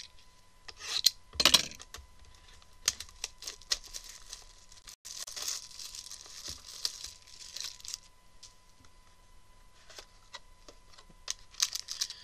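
A trading card pack wrapper being torn open and crinkled, in short crackling spells with scattered clicks of cards and packaging being handled.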